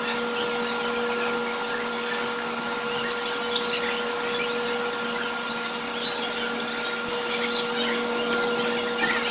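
Steady machine hum, one held tone with a hiss over it and faint scattered ticks.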